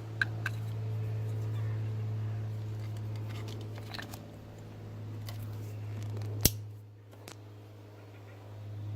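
Xenon headlight leveling motor running in a low steady hum while being test-powered on temporarily joined wires, swelling and easing in loudness. Small clicks of handling over it, with one sharp click about six and a half seconds in.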